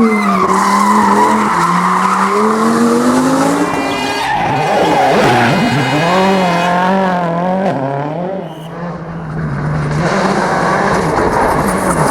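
Rally car engine revving hard, its pitch swinging up and down as the driver works the throttle, with tyres squealing and skidding on the surface.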